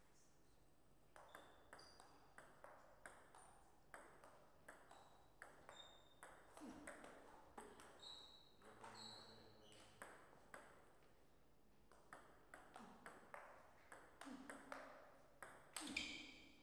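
Table tennis ball clicking off the rackets and the table in quick runs of hits: one long run, a pause of a second or two, then another run ending in a louder hit near the end.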